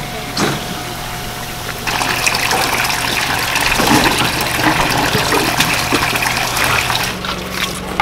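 Water running from a hose into a tarp tank of live fish, splashing over a steady low hum, growing louder about two seconds in.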